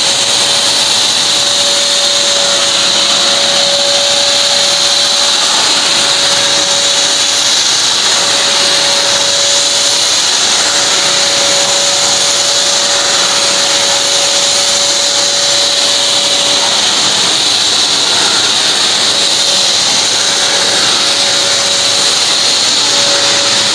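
Canister vacuum cleaner running steadily at full power: loud rushing suction with a high motor whine, as its floor nozzle is pushed over carpet. The whine fades out briefly a few times while the rush of air carries on.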